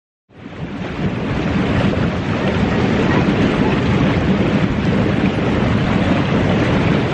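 Wind buffeting the microphone over the rush of ocean surf, fading in about a third of a second in and then holding steady.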